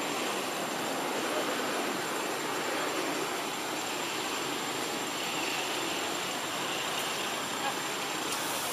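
Steady, even outdoor background hiss with a thin, constant high-pitched whine over it; no distinct calls or knocks stand out.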